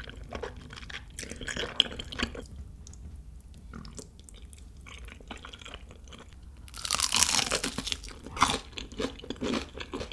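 Close-miked eating sounds: slurping of saucy noodles and flat rice cakes, with a long loud slurp about seven seconds in, then crunchy bites into nacho-crusted fried chicken and chewing near the end.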